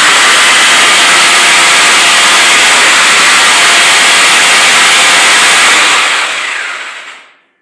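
Loud, steady rushing noise that fades away about six seconds in.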